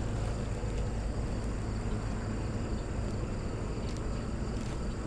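Steady outdoor background of a low, constant hum of distant traffic, with a faint drone of insects above it.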